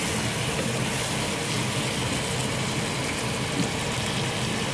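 Chopped vegetables (okra, garden eggs, tomato, garlic and carrots) frying in a pot with a steady sizzle.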